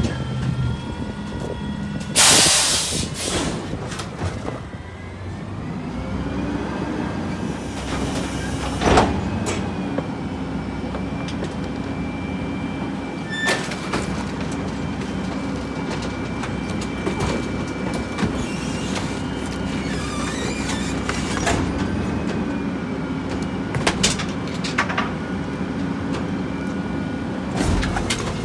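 Rear-loader garbage truck. There is a loud air hiss about two seconds in; then the diesel engine speeds up and holds steady with a thin whine, as when the hydraulic packer is engaged. Several sharp clanks are scattered through it.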